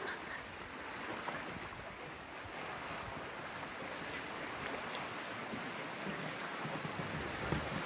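Steady rushing of a moving river's water, with wind buffeting the microphone in low rumbles near the end.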